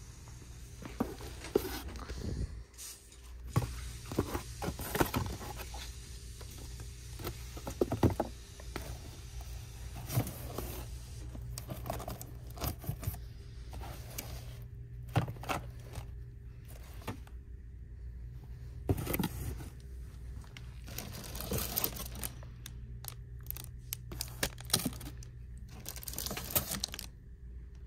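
Packaged children's activity books, game boxes and sticker packs handled on a store shelf: irregular crinkling of plastic packaging, scraping and tapping of cardboard as items are pulled out of and pushed back into their display boxes, over a steady low hum.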